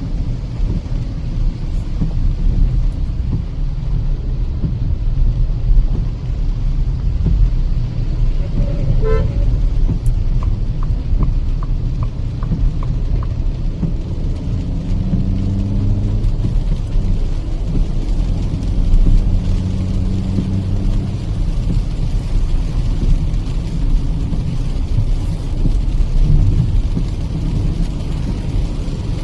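Road and tyre rumble with engine noise from a Kia Seltos petrol manual driving on a wet highway, heard inside the cabin. A brief vehicle horn toot sounds about nine seconds in, followed by a few seconds of even ticking, like a turn indicator.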